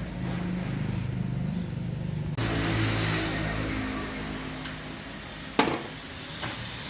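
Car engine running steadily, a low even hum that changes abruptly about two and a half seconds in, with one sharp click about five and a half seconds in.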